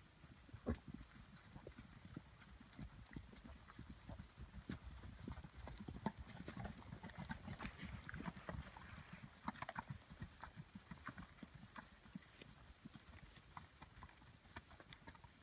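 Hoofbeats of several ridden horses walking on a grass and dirt trail: a soft, irregular clip-clop, loudest in the middle as they pass close, then fading as they move away.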